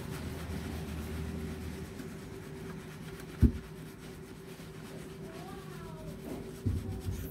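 Hands scrubbing shampoo lather through wet curly hair, a soft wet rubbing over a steady low hum. A sharp knock sounds about halfway through, and a couple of smaller thumps near the end.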